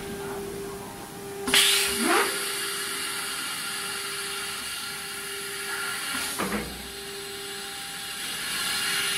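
Pneumatic suction-cup loader of an automatic CNC router working: a steady machine hum under sharp bursts of compressed-air hiss about one and a half seconds in, again just after, and once more about six and a half seconds in, as the air cylinders and vacuum pads handle the panel. The hiss grows louder near the end.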